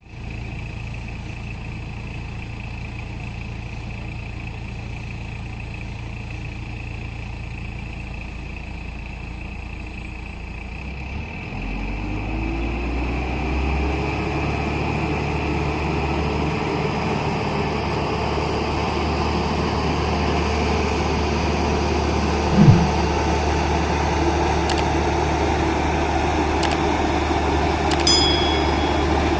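Maxxi Bimo 110 Plus combine harvester running steadily, then revving up about a third of the way in, with a rising whine that settles into a higher, louder steady run. A brief knock sounds about three-quarters through.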